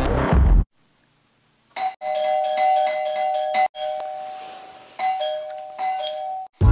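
Doorbell chime rung over and over, about four or five ding-dong chimes each left to ring out, the last cut off short. A snatch of music ends just after the start, and music comes back in right at the end.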